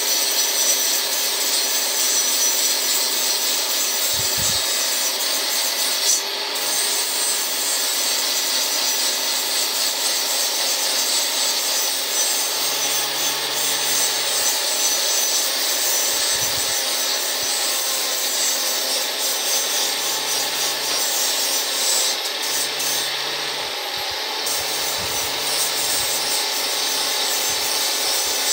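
Angle grinder grinding rust off a steel pipe, a steady high grinding noise. The noise eases briefly about six seconds in and again for a couple of seconds around the 23-second mark.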